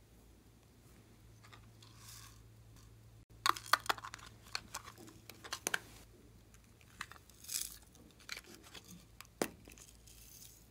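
Popsicle-shaped clay pieces being broken apart and crumbled by hand over slime: a faint rustle at first, then a cluster of crisp crackles and snaps about three and a half seconds in, followed by scattered softer crunches and one more snap near the end.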